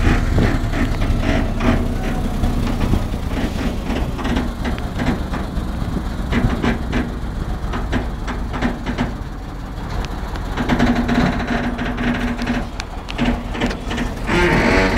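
Truck engine running while under way, with frequent rattles and knocks from the vehicle's body.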